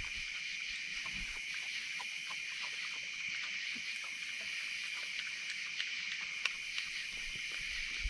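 A steady nighttime insect chorus of crickets and katydids, a constant high, buzzing shrill. Scattered small clicks and crunches run through it as a raccoon and an opossum eat crackers and food scraps, with a few sharper clicks about six to seven seconds in.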